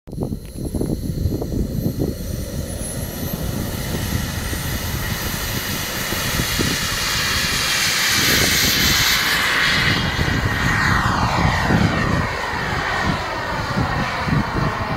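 Radio-controlled model jet flying past: its high rushing whine swells to its loudest about halfway through, then falls in pitch as it goes by. A gusty low rumble runs underneath.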